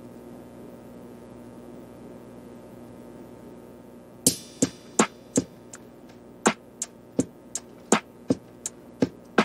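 Background music: a soft, steady synth pad, joined about four seconds in by a beat of sharp, crisp percussion hits, roughly three a second.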